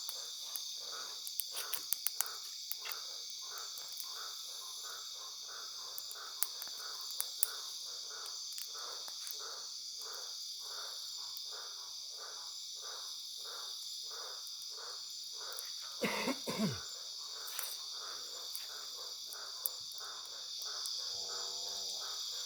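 Night insect chorus of crickets, a steady high-pitched trill, with a second call pulsing about twice a second beneath it. A few scattered clicks early on, and one brief louder sound about sixteen seconds in.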